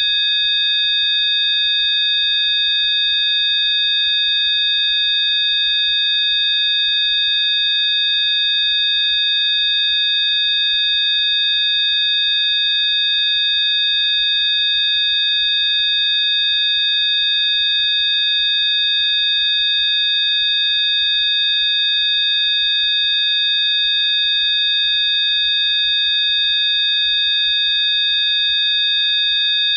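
Several steady, high-pitched electronic sine tones sound together as one unchanging chord: a synthesized Rife frequency track.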